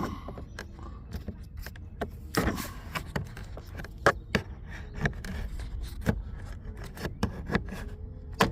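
Flat screwdriver scraping and levering at a plastic door trim panel on a 2013 Nissan Altima, with irregular clicks and knocks as the panel's clips are worked loose.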